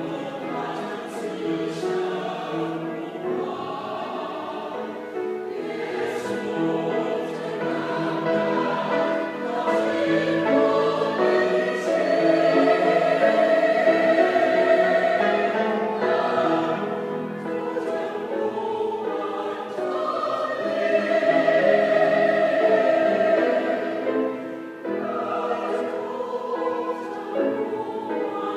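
A mixed church choir singing a hymn in parts with piano accompaniment, swelling louder about twelve seconds in and again about twenty seconds in.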